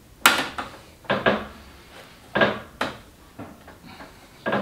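About six irregular knocks and clunks as heater parts and pipes are handled and set in place, the first the loudest.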